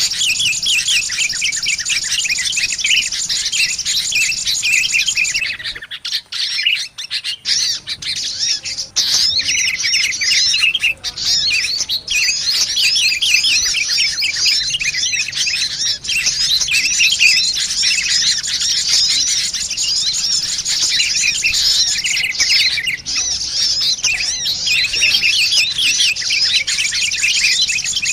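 Bird-lure recording of sunbirds and sooty-headed bulbuls calling busily together: a dense, rapid run of high chirps and twitters, thinning briefly about six seconds in.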